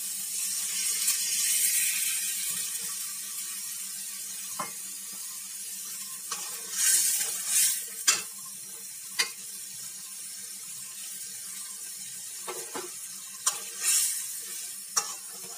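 Water poured into a hot aluminium karahi of spiced vegetables frying in oil, hissing loudly for the first couple of seconds and then settling to a steady sizzle. A metal spatula scrapes and clicks against the pan several times as the vegetables are stirred.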